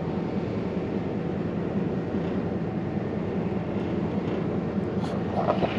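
Heavy truck's diesel engine idling steadily, a constant low hum.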